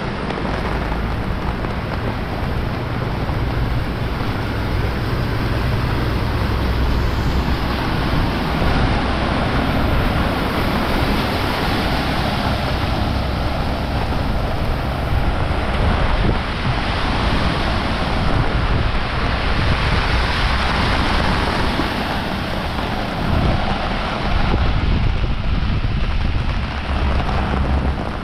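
Heavy rain pouring steadily, with wind buffeting the microphone in a low, uneven rumble.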